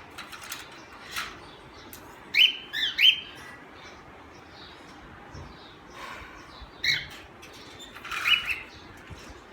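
Pet parrots giving short squawking calls, a loud cluster about two and a half to three seconds in and more around seven and eight seconds, with fluttering and light clicks and rattles as they are handled in the cage.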